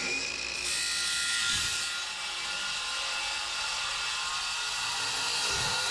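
Circular saw cutting through a plywood sheet: its motor whine rises and settles at the start, then the blade runs steadily through the wood.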